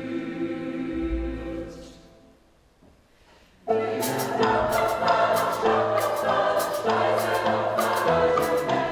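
Mixed choir with an instrumental ensemble: a held choral chord fades away about two seconds in, with a low thump about a second in. After a short pause, choir and ensemble come back in loudly with sharp percussion strikes about twice a second.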